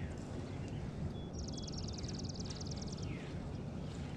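A songbird's rapid, high, evenly pulsed trill lasting under two seconds, starting about a second and a half in, with a few faint falling chirps from other birds over a steady low outdoor rush.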